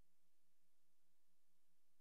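Near silence: a blank sound track with only a faint steady hiss and low hum.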